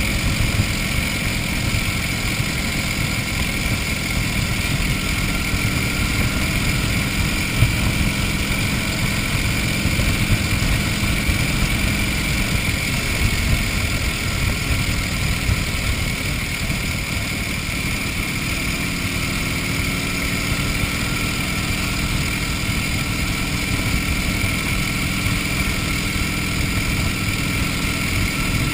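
1931 Indian 101 Scout's flathead V-twin engine running under way at a steady cruise, its note shifting up a little past the middle as the speed changes. Wind rushes over the microphone throughout.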